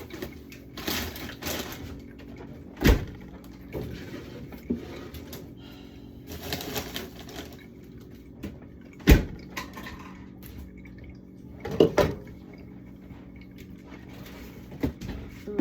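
Jars and food containers knocking and clunking as they are handled and set down, with several sharp knocks and some rustling in between.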